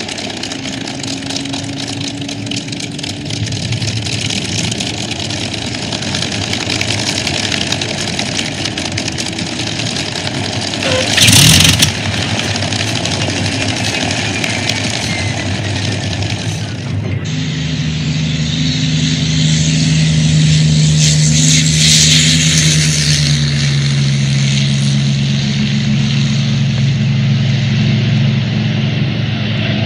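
Messerschmitt Bf 109E-3's piston engine running with the propeller turning, broken by a short, loud burst about a third of the way in. Past the middle the sound changes abruptly to a louder, steady engine note as the fighter flies.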